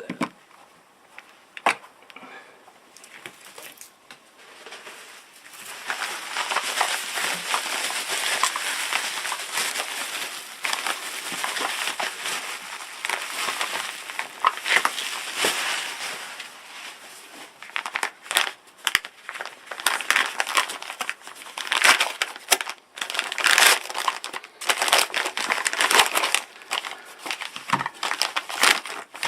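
Packing material being crumpled and rustled by hand as a parcel is unpacked. The first few seconds are fairly quiet, then there is continuous crinkling, followed by bursts of sharp crackles in the second half.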